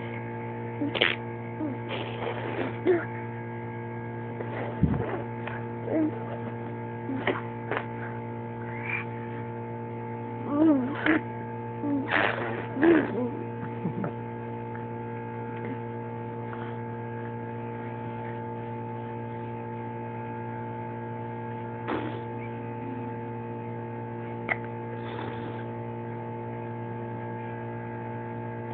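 Steady electrical hum made of several level tones, with a baby's short babbling sounds and lip blows as he blows spit bubbles, most of them in the first half and the loudest about twelve seconds in.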